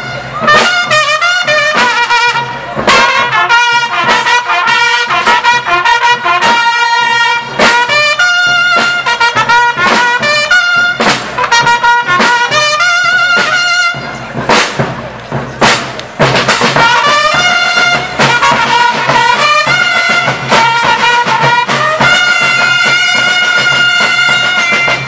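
School rhythm band playing: trumpets and trombones carry the melody over snare drums, bass drum and cymbals. The brass drops out briefly just past halfway, leaving the drum hits, then comes back in.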